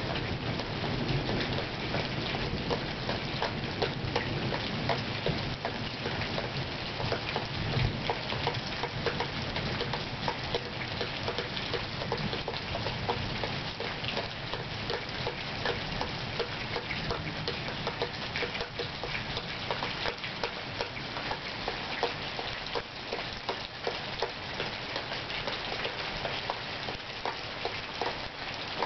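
Thunderstorm rain falling steadily, with many close drops tapping. A low rumble sits under it for about the first ten seconds, then fades.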